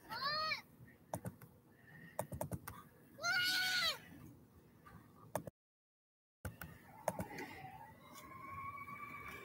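Scattered clicks of a laptop keyboard being typed on, with two short high-pitched cries that rise and fall in pitch, one near the start and one about three seconds in. A faint steady whine comes in near the end.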